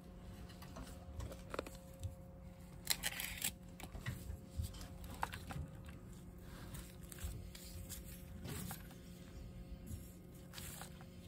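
Old original alternator's pulley and rotor spun by hand, turning with a slight dragging noise, with a few handling scrapes and clicks, the most prominent about 3 s and near the end.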